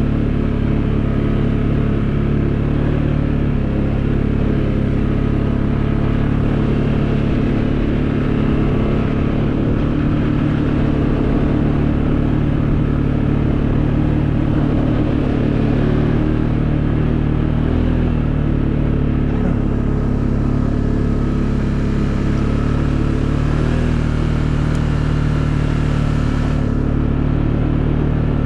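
Can-Am Outlander 700 Pro XU ATV's single-cylinder engine running steadily while riding along, an even drone with only slight dips in pitch.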